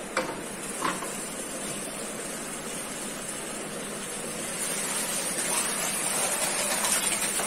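Whey and curds being poured out of a large plastic tub of split milk, a rushing gush of liquid that grows louder through the second half. Two light knocks in the first second as the tub is handled.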